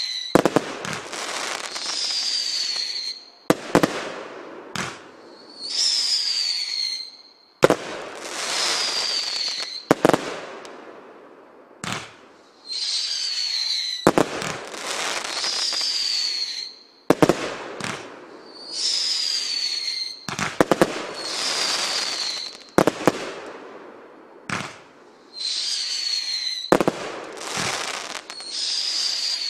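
Power Station 1 firework cake firing a barrage of shots, one every two to three seconds. Each shot has a short whistle falling in pitch, then a sharp bang as it bursts, then a hissing crackle of stars dying away.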